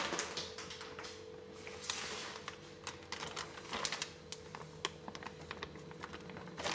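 Light, irregular clicks and rustles of kitchen handling, ending with a hand dropping flour into a plastic bowl of grated vegetable cutlet mixture.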